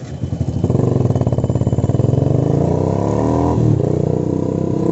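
Yamaha FZ motorcycle's single-cylinder engine pulling away and accelerating, its pitch rising, with a brief drop in engine sound about three and a half seconds in.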